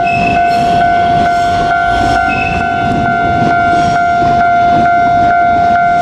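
Japanese level-crossing warning bell ringing about twice a second over a steady tone, with the running rumble of a JR Kyushu 817 series electric train on the track.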